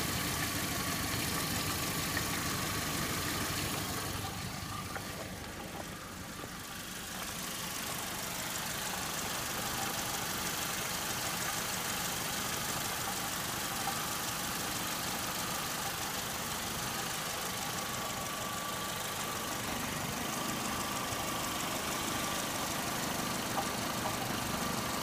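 Saturn S-series four-cylinder engine idling with a clanking like a muffled cowbell and now and then a gurgle like liquid, which the owner can only put down to the catalytic converter.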